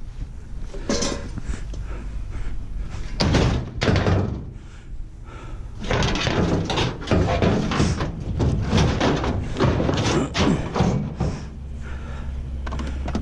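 Scrap metal being loaded into a pickup truck bed: a run of thumps, bangs and clanks, thickest from about six to eleven seconds in.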